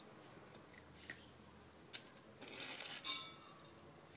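Dry cat food kibble clinking and rattling as a cat paws it out of a food container: a few light clicks, a brief rustle, then a sharper clatter about three seconds in.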